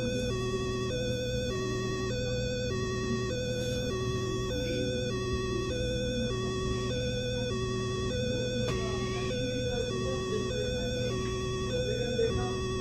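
Two-tone hi-lo police siren alternating steadily between a higher and a lower note, about one high-low cycle a second, at an even level with no change in pitch, over a steady low hum.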